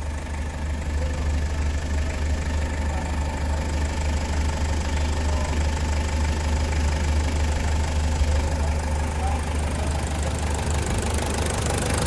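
Toyota Land Cruiser's 1KZ four-cylinder turbodiesel engine idling steadily.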